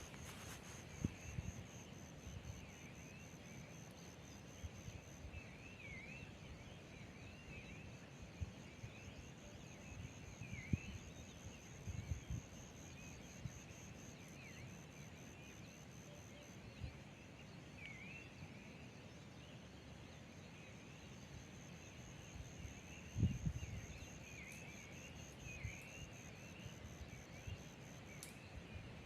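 Forest ambience with a steady high insect trill and short dipping chirps repeated every second or two. Occasional low thumps sound, the strongest about 23 seconds in.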